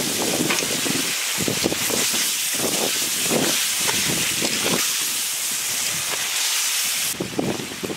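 Steam hissing and sizzling from a hot steel kadai of pointed-gourd curry on a wood fire just after a little water is poured in, with a ladle stirring through it. The hiss stops suddenly near the end.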